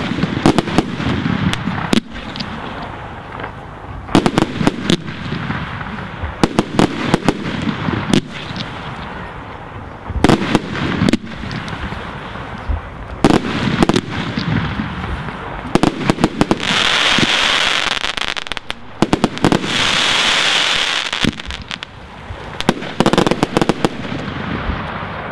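Aerial fireworks going off: an irregular run of sharp bangs from launches and bursts, with two longer stretches of dense hissing noise, each over a second long, about two-thirds of the way through.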